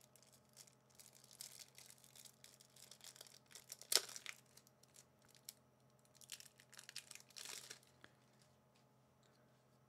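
Faint crinkling and tearing of a Magic: The Gathering booster pack's foil wrapper as cards are handled, with one sharp click about four seconds in. It dies away about two seconds before the end.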